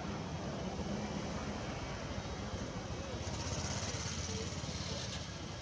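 Steady low background noise with no distinct events, and a higher hiss joining about three seconds in for roughly two seconds.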